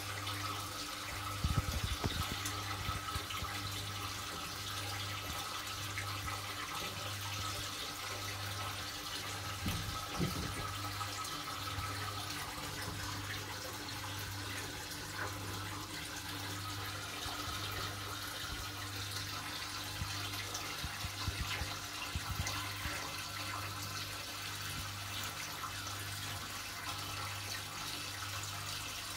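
Aquarium equipment running: a steady wash of circulating water and air bubbles over a low, evenly pulsing pump hum. A few clicks stand out about two seconds in and again around ten seconds.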